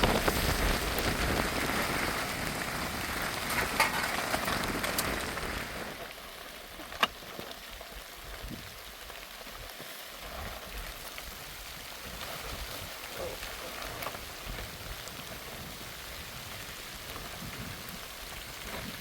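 Heavy rain falling steadily, louder for the first six seconds and then quieter, with a single sharp click about seven seconds in.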